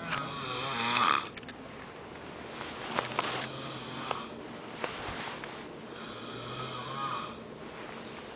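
A person snoring, one snore on each breath, about four in a row, the first the loudest. A few brief clicks come near the middle.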